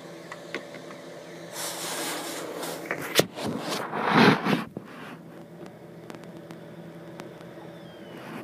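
Handling noise of a handheld camera being moved around a small room: light clicks and rubbing, with a louder rushing rub about four seconds in, over a faint steady hum.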